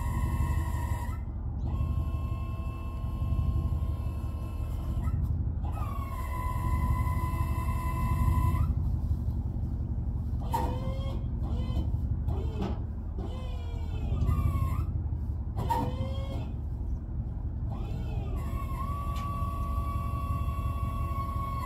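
Hydraulic pump of a loaded dump truck whining in runs of several seconds: three times it winds up to a steady pitch and holds, over the low rumble of the truck's idling engine, to tip the log load off the bed. Between the second and third runs come short gliding squeals.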